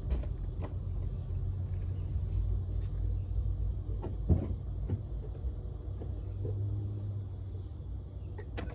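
A car engine idling as a steady low rumble, with a few handling knocks and clicks over it; the loudest knock comes about four seconds in.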